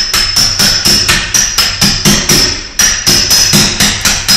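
Hammer tapping a car starter's drive-end block down into its bore to seat it square: a quick, even run of light metal-on-metal taps, about five a second, each with a short high ring.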